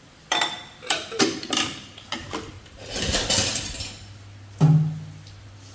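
Plastic bowls and a plastic dish basket clattering against a stainless steel sink: a run of knocks and rattles, then one louder knock with a short low ring about four and a half seconds in.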